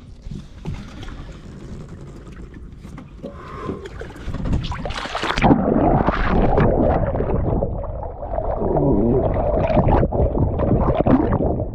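A person plunging into open water with the camera: light wind and water noise, then about five and a half seconds in a sudden splash, after which the sound turns muffled, with underwater bubbling and gurgling churning on as he swims.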